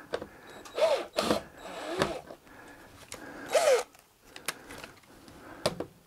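Cordless drill run in a few short bursts, backing sheet-metal screws out of a stove pipe joint, with sharp metallic clicks between them.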